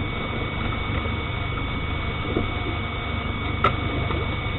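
Boat motor running steadily, with a faint steady high whine over the low drone and a single sharp click near the end.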